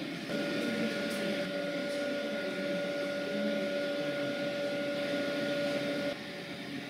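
A steady pitched tone with a background rush, held level for about six seconds and then cut off sharply.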